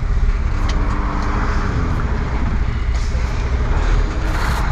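Semi truck's diesel engine running with a steady low rumble, heard from inside the cab.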